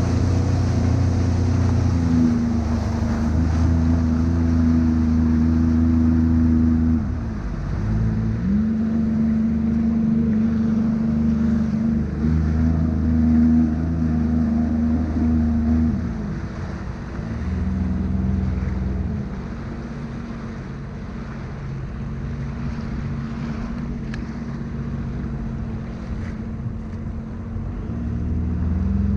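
Sea-Doo personal watercraft engine running, its pitch sagging and picking up again several times as the throttle is eased and reopened. It settles lower and quieter for a stretch, then rises again near the end.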